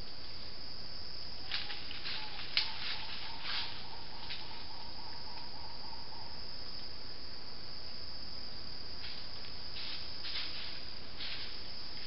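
Steady high-pitched drone of forest insects, with a few short rustles and crackles now and then, one sharp click among them.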